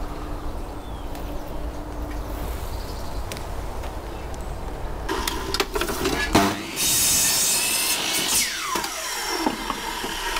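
A mitre saw starts about halfway through and cuts through a wet wooden board, then winds down with a falling whine. Before it there is only a low steady rumble.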